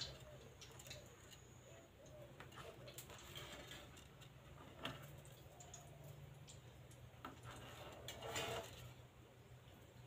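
Faint, scattered clicks and taps from a rose-ringed parakeet's claws and beak on a wooden bench, with a brief, louder scratchy noise about eight and a half seconds in.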